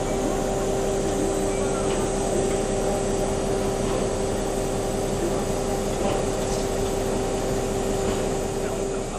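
Steady hiss of steam with a constant pitched hum in the cab of a Henschel D h2t tank steam locomotive under steam, unbroken throughout.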